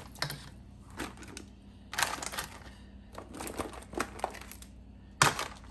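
Handling noises: a run of light clicks and crinkling rustles, with a sharper knock near the end.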